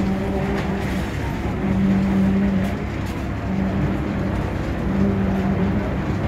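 Construction machinery running during a concrete slab pour: a steady mechanical drone whose hum swells and fades every second or so.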